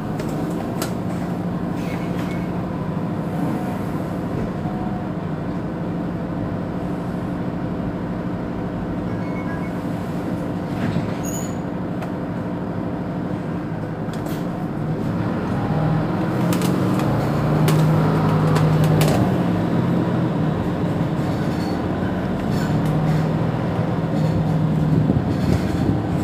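Mercedes-Benz Citaro C2 city bus idling at a stop: a steady low engine hum with a few held tones, growing louder for a few seconds just past the middle before settling back.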